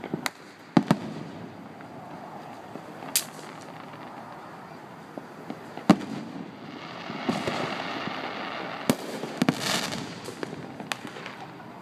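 Aerial firework shells bursting: sharp bangs a second or a few seconds apart, with a thicker rush of noise and several quick bangs close together between about seven and ten seconds in.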